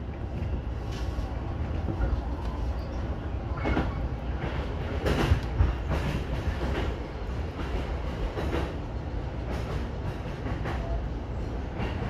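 E233-1000 series electric commuter train running along the line, heard from the cab: a steady low rumble with irregular sharp clacks from the track every second or two.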